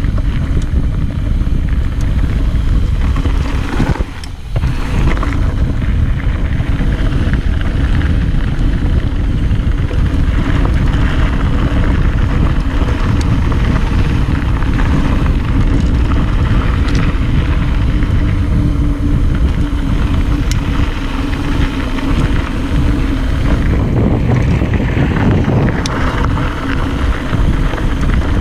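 Wind buffeting an action camera's microphone, with a mountain bike's tyres rolling over a dirt trail at speed on a descent. The noise drops briefly about four seconds in.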